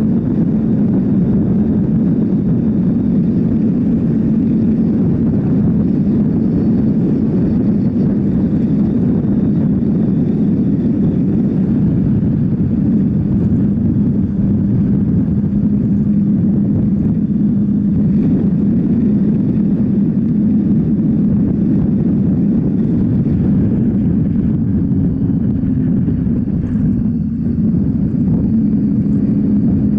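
Triumph Tiger 800 XC motorcycle's three-cylinder engine running steadily under way, with road and wind noise; the engine note shifts slightly near the end.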